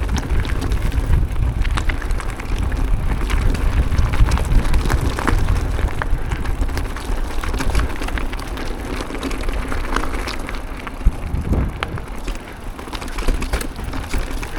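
Full-suspension mountain bike rolling down a dirt trail: a steady rumble of knobby tyres and wind buffeting the helmet-mounted microphone, with many scattered clicks and rattles from the bike over rough ground.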